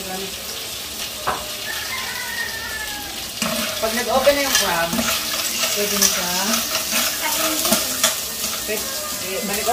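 Clams, carrots and onion sizzling in a wok over a gas flame. A metal spoon starts stirring and scraping them around the pan about three and a half seconds in.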